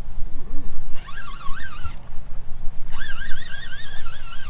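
Fishing reel cranked fast while reeling in a hooked fish: a whining tone that wavers up and down with each turn of the handle, in two spells starting about a second in and again a second later. Wind rumbles on the microphone.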